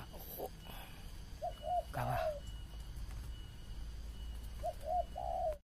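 Spotted dove (tekukur) cooing: two phrases, each two short notes followed by a longer one, about a second and a half in and again near the end. The sound cuts off suddenly just before the end.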